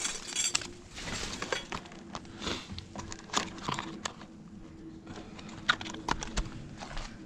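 Irregular rustling, clicks and knocks of discarded items being handled, over a faint steady hum.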